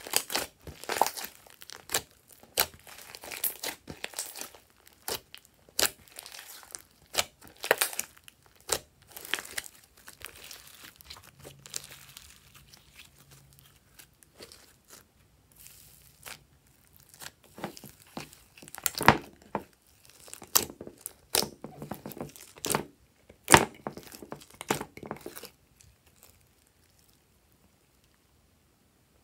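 Hands squeezing and kneading a large blob of glossy pink slime, giving irregular wet crackles and sharp pops, in dense clusters. The sounds stop about three seconds before the end.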